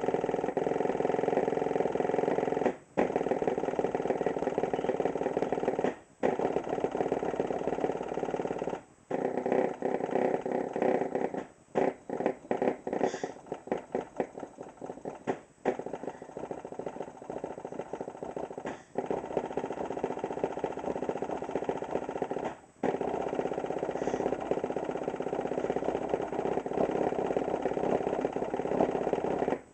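Custom-built 12-inch subwoofer (dual surround, custom motor) driven hard at long cone excursion. Its bass comes through as a loud, distorted buzz. The buzz is cut by brief pauses every few seconds and turns choppy, on and off, for a few seconds in the middle, then stops at the end.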